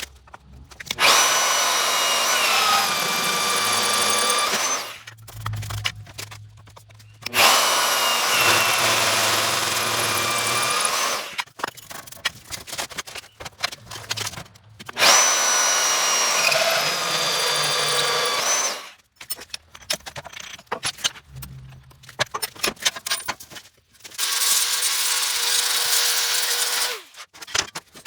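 Electric drill boring holes in a steel plate for dimple dies: four runs of about four seconds each, the motor's whine dropping slightly in pitch as the bit bites, with clicks and knocks of handling in between.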